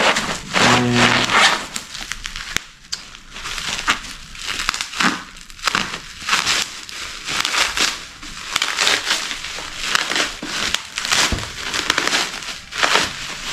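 Packaging being handled: crinkling, crackling and rustling, coming irregularly throughout.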